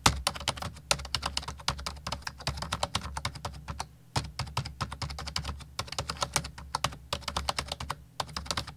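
Typing sound effect: fast clicking of keys, several strokes a second, over a low steady hum. It breaks off briefly about four seconds in and again about eight seconds in.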